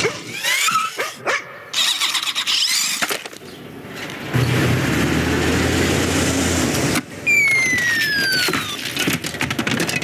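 Animated-film chase sound effects, with no music or dialogue. Several short whines and knocks come first. A large moving truck's engine and tyres rumble steadily past for a few seconds midway. Then come high squealing whines that fall in pitch, with dog sounds mixed in.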